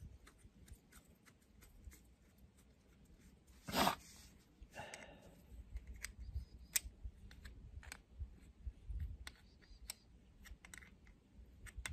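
Light clicks and taps of hand tools and small metal parts while a wing mower's carburetor is being taken apart, with one brief louder noise about four seconds in and a short hiss just after.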